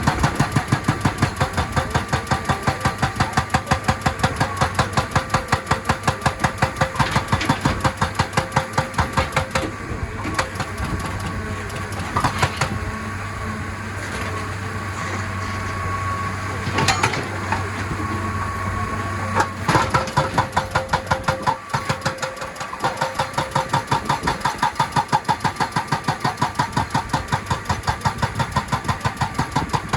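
Excavator-mounted hydraulic rock breaker hammering rock in fast, even blows over the engine's running. The hammering stops for about ten seconds in the middle, leaving the engine with a few single knocks, then starts again.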